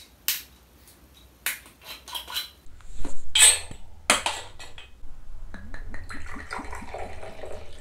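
A few sharp clicks and knocks, then, from about two-thirds in, soju pouring from a glass bottle into a small shot glass, a steady splashing gurgle.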